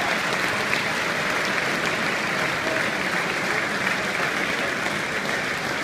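A large stadium crowd applauding, a steady dense clapping that eases off slightly towards the end.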